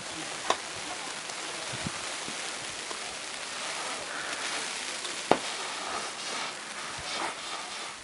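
Blizzard wind driving snow in a steady hiss, with two sharp clicks, a small one about half a second in and a louder one about five seconds in.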